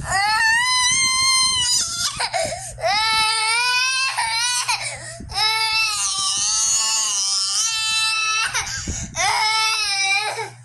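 A young child crying hard in long, high-pitched wails, about five of them with short gasping breaths between. The crying cuts in suddenly.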